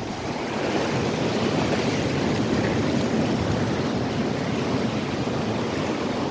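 Shallow surf washing over wet sand: a steady rushing hiss that swells within the first second and eases near the end.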